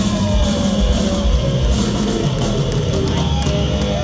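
Rock band playing live: electric guitar holding notes over a drum kit.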